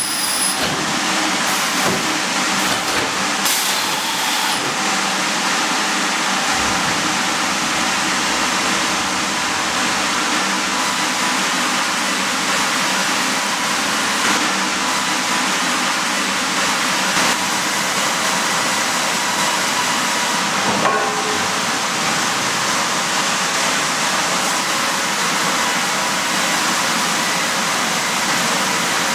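Sawmill machinery running: the band-saw headrig, log carriage and roller conveyors make a steady, loud noise, with a few faint clanks and clicks.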